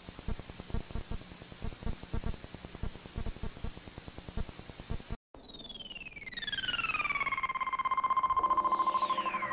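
A steady high whine over hiss and faint irregular low thumps, then a brief dropout. After it, an electronic synthesizer tone glides smoothly down and settles on a held pitch, and a second falling glide begins near the end: the sound of a TV logo's jingle played off an old video tape.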